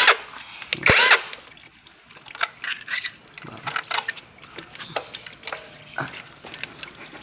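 Light, irregular metallic clicks and taps of a wrench and other hand tools on the engine as the alternator's bolts are worked loose, with a short bit of talk at the start.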